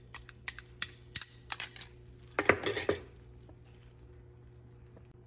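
Spoon clinking against a jar and the pan as pesto is spooned in: a run of light, irregular clinks, then a louder scraping clatter a little over two seconds in.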